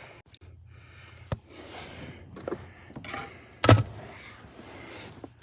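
Parking brake cable being worked into place on a truck: scraping and rustling as it is fed through, with a sharp click about a second and a half in and a louder knock a little over halfway through.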